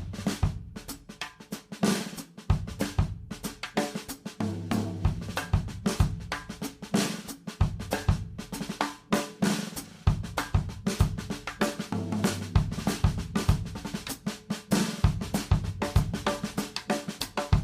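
Music: a drum kit playing a busy rock beat with snare, bass drum, hi-hat and cymbals.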